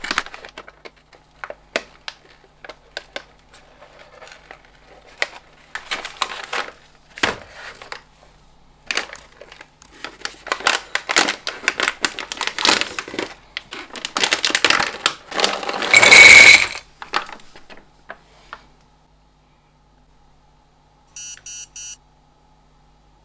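Crinkling and rustling of a foil-lined snack pouch being handled and torn open by gloved hands, in many sharp crackles that thicken into a dense, loud burst about two-thirds of the way through. Near the end comes a short electronic beeping.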